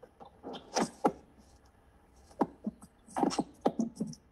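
Scattered short, indistinct mouth and breath sounds with small clicks, like someone making noises near a microphone rather than speaking words.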